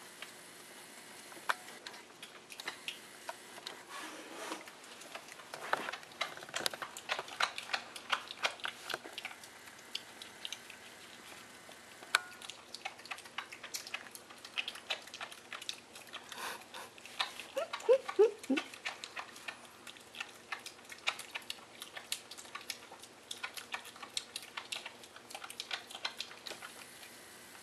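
Wild piglet chewing and slurping an orange half, a dense run of irregular wet smacks and crunching clicks, busiest in bursts. About two-thirds of the way through comes a quick run of short falling squeaks, the loudest moment.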